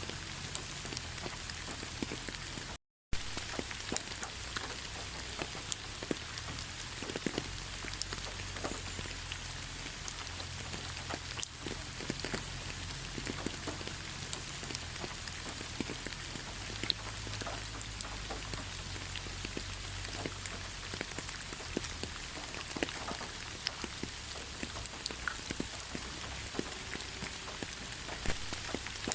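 Steady gentle rain: a continuous hiss with many separate drops ticking sharply on a surface. The sound cuts out for a moment about three seconds in, then carries on unchanged.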